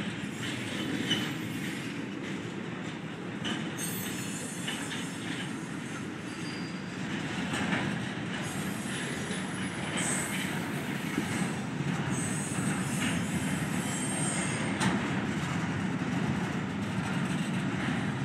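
Intermodal freight train's container well cars rolling past: a steady rumble of steel wheels on rail with occasional clacks, and thin, high wheel squeals that come and go from about four seconds in.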